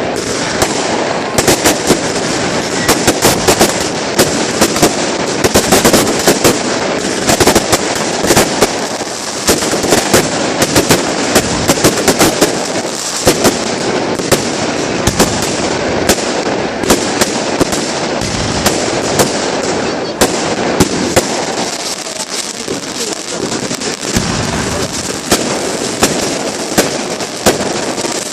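Fireworks display: a dense, continuous barrage of bangs and crackling shells, many sharp reports close together.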